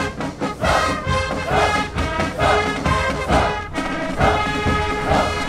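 A festival rappa corps of brass horns playing a marching tune together, its held notes swelling in a regular pulse about once a second, as used to accompany the hauling of the Onbashira pillar.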